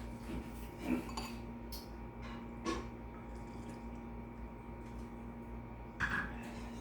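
Cutlery clinking against a dish several times, the loudest clinks about a second in, near three seconds and near the end, over a steady low hum.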